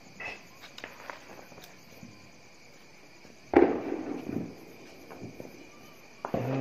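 Firecrackers going off: one loud, sharp bang about halfway through that echoes away over about a second, with a few faint pops before and after it.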